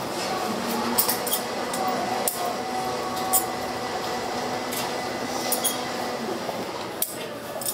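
Hand candy-making work: scattered sharp clicks and clinks of tools and hard candy on a work table, about eight at irregular intervals, over a steady background din.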